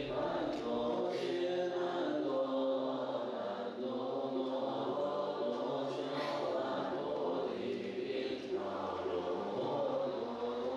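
Buddhist monks and a lay assembly chanting together in unison, a slow melodic liturgical chant with long held notes.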